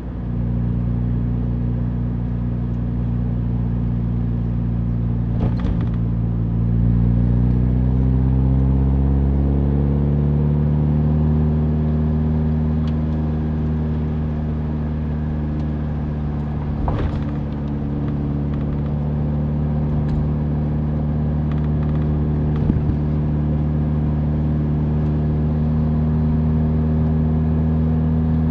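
Mazda Roadster's four-cylinder engine running under way with road noise. The engine note climbs steadily from about six seconds in to about eleven seconds in, then holds steady. There are two brief knocks, at about five and seventeen seconds in.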